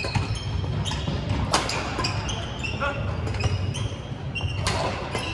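Badminton rally sounds in a reverberant gym: sharp racket strikes on the shuttlecock and repeated short, high-pitched squeaks of court shoes on the hardwood floor, over a low steady hum of the hall.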